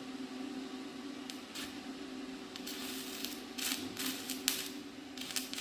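Stick (arc) welder humming steadily, with the arc crackling in irregular bursts from about a second in, coming thicker and faster after about two and a half seconds.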